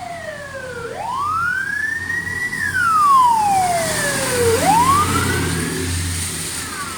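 Fire engine siren wailing, each cycle rising slowly from low to high and falling back over a few seconds, twice in this stretch, with a second, fainter siren overlapping out of step. The truck's engine rumbles beneath, swelling in the second half as it passes.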